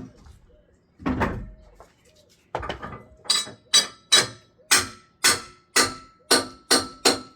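A dull thump about a second in, then a steady run of about a dozen sharp knocks, roughly two a second, each with a short ringing tone, like repeated blows on a hard object.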